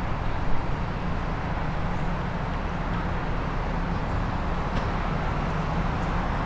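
Steady low rumble of city traffic, with no single sound standing out.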